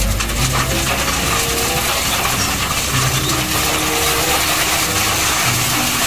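Load of gravel pouring out of the side of a dump truck, a steady dense rush of sliding and clattering stones. Short steady notes of background music sound over it now and then.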